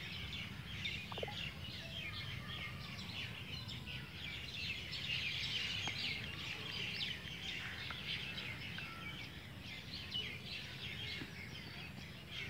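Many birds chirping and calling together in a dense, continuous chorus, over a low steady rumble.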